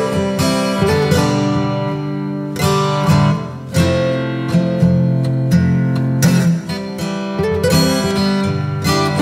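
Background music led by plucked and strummed acoustic guitar.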